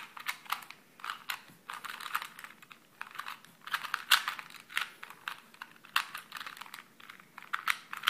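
Plastic Lanlan 2x2x2 puzzle cube being scrambled by hand: its layers are turned quickly, over and over, giving a run of irregular clacking clicks.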